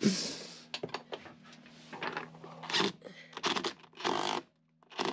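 Bolts being tightened with a hand tool to clamp a glued frame: irregular short scraping and clicking strokes, the strongest right at the start, over a low steady hum.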